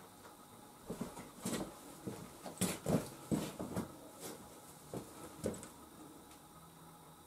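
Irregular clicks and light rattles of small crimp connectors and plastic assortment boxes being handled, bunched between about one and six seconds in, while ring terminals are searched for.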